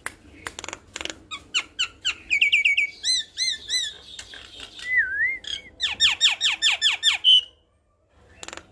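Javan myna singing a varied song: a string of sharp clicks, quick whistled notes and a wavering whistle, then a fast run of falling squawky notes that cuts off suddenly.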